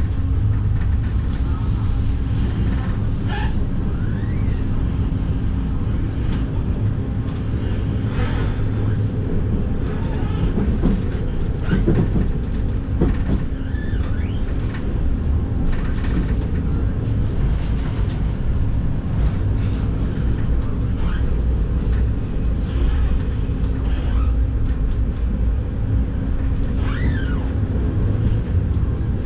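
Inside a Vityaz-M (71-931M) low-floor tram under way: a steady low rumble of the running gear with a constant hum, and a few brief rising and falling whines.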